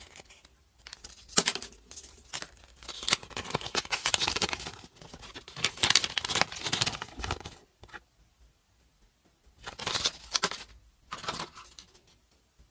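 Close-up handling of a Kinder Joy toy capsule and its folded paper leaflet: paper crinkling and rustling, mixed with small plastic clicks and taps, in uneven spells with a quiet gap of a second or two about two thirds of the way through.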